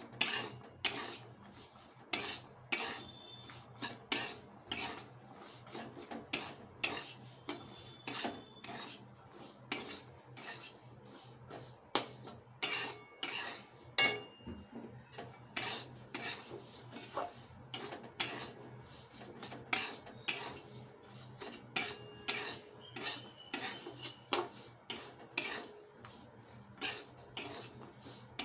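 Metal spatula scraping and knocking against a metal kadai while semolina, peanuts and onion are dry-roasted without oil, with sharp clinks about once a second.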